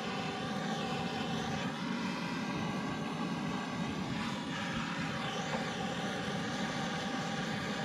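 Handheld gas torch burning with a steady rushing flame, held against damp firewood to light a campfire. It was lit just before, and runs unbroken.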